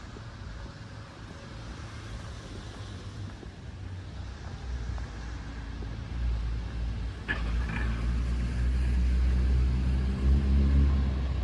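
A heavy truck's engine rumbling and growing louder as it draws near, loudest in the last few seconds.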